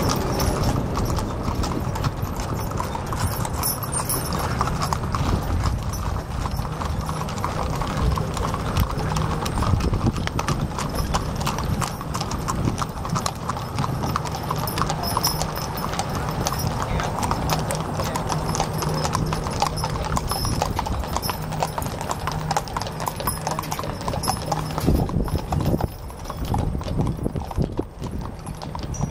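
Horses' hooves clip-clopping on pavement as a string of horse-drawn covered wagons and riders passes, with the wagons' wheels rolling along the road. The steps come thick and irregular from several horses at once.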